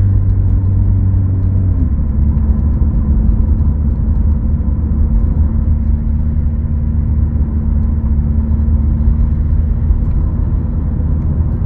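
Subaru Outback driving on the road, heard from inside the cabin: a steady low rumble of engine and tyre noise, with the engine note changing about two seconds in.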